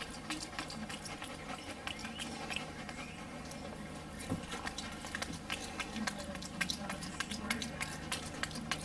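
Capuchin monkey chewing a bratwurst with its lips smacking: a run of irregular wet clicks and smacks that come thicker and faster in the second half.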